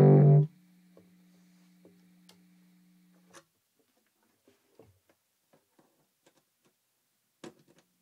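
Electric guitar played through a Univox Unidrive distortion pedal into an EF86/EL84 valve amp head, a loud distorted chord that is cut off abruptly half a second in. A faint low hum carries on for about three seconds, then come scattered faint clicks and taps, with a louder one near the end.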